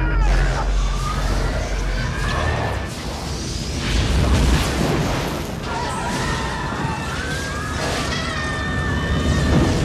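Film-trailer sound design: a deep rumble with booming hits under wavering, siren-like electronic tones that glide up and down.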